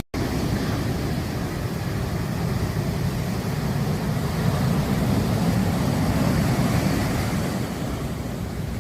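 Surf breaking on a beach: a steady, rushing wash of waves that swells louder in the middle. There is a split-second gap right at the start.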